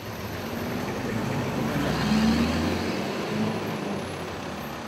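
A motor vehicle passing by: engine and road noise swell to a peak about two seconds in, then fade.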